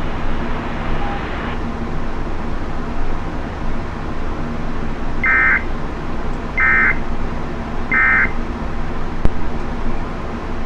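Emergency alert broadcast ending with three short bursts of warbling digital data tones, evenly spaced about a second and a half apart: the end-of-message code that closes the warning. A steady hiss and hum of radio static runs under them, with a single sharp click near the end.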